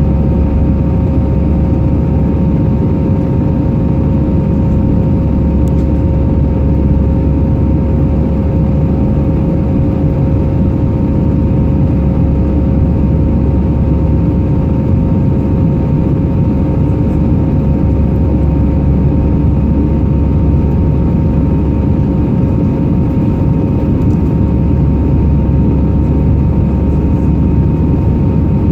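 Airbus A319 cabin noise from a window seat in flight: a steady, loud rumble of engines and airflow with two steady engine whine tones running through it.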